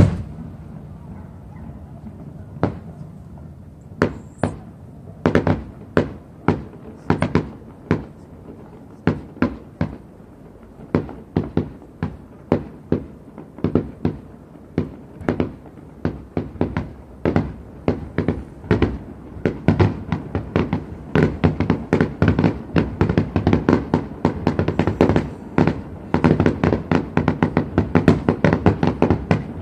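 Aerial fireworks shells bursting in sharp bangs, at first a second or more apart, thickening into a rapid barrage of several bangs a second in the second half.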